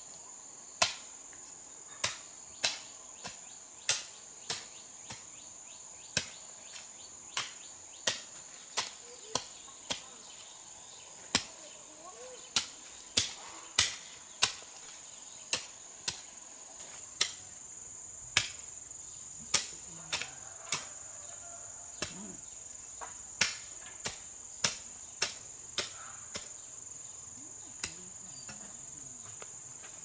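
Hoe blade chopping into garden soil in irregular strikes, roughly one a second, over a steady high-pitched drone of insects.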